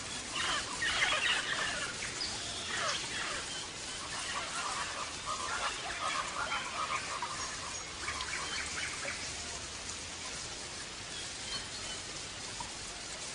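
European goldfinch of the large 'major' type singing: a fast run of short chirping notes, densest in the first few seconds and sparser after.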